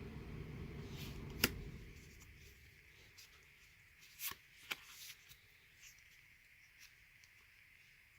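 Trading cards from a freshly opened booster pack being handled and flicked through. A few sharp card clicks come about a second and a half in and twice close together around four seconds in, with lighter ticks after.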